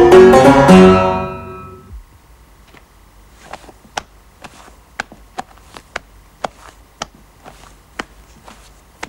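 A loud plucked-string music chord rings and fades away over the first two seconds, then quiet, sharp ticks follow about twice a second.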